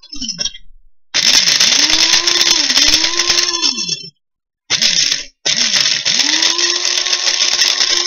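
Small electric blade coffee grinder pulverizing dry pinto beans, run in pulses: a brief burst, a run of about three seconds, another brief burst, then a longer run. The motor's whine sags and recovers in pitch as the beans load the blade, with the beans clattering against the cup.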